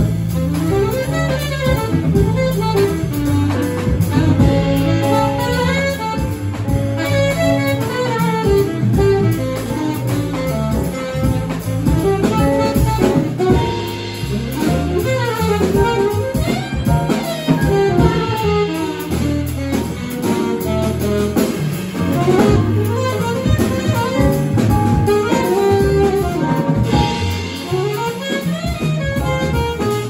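Jazz quartet playing live: saxophone leading the melody over piano, upright bass and drum kit.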